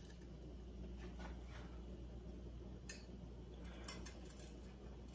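Faint kitchen handling sounds: a fork and hands working over a plate of breading and a plastic-wrapped cutting board give a few light clicks and rubs, with one sharper click about three seconds in, over a low steady hum.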